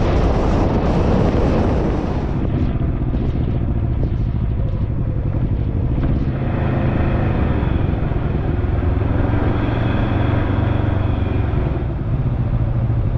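Can-Am three-wheeled motorcycle's engine running steadily while riding, with wind buffeting the microphone for the first couple of seconds.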